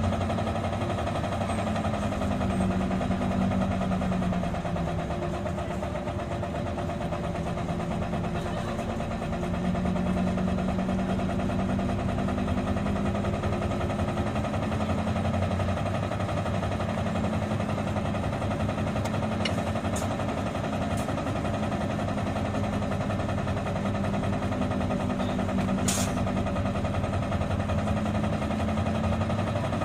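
Isuzu Erga city bus under way, its diesel engine's pitch slowly rising and falling with changes of speed, over steady road noise. A few short sharp clicks come about two-thirds of the way through and again near the end.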